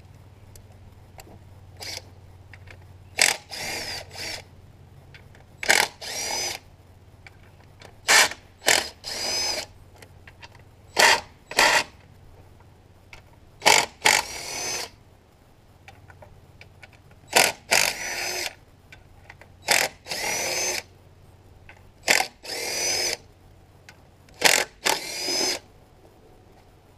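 Compact DeWalt cordless impact driver loosening the 8 mm bolts that hold the LS V8's intake manifold to the heads. It fires about nine times, roughly every two to three seconds, each time a short loud burst followed by a longer run with a rising whine as the bolt backs out.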